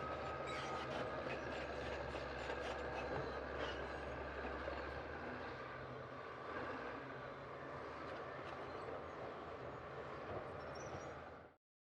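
Heavy diesel machinery running, a low engine hum under a rattling, clattering mechanical noise; the low hum eases about halfway through, and the sound cuts off abruptly near the end.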